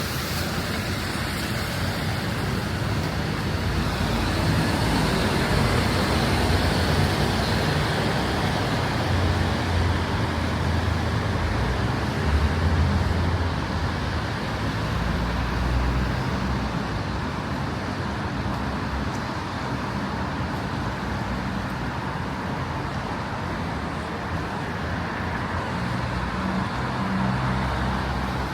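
City street traffic: motor vehicles passing, with a steady wash of tyre and engine noise and a heavier low engine rumble from about nine to sixteen seconds in.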